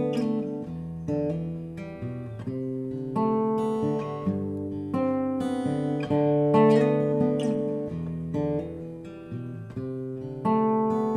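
Solo guitar playing an instrumental passage between verses of a song: chords struck about every second or two and left to ring out.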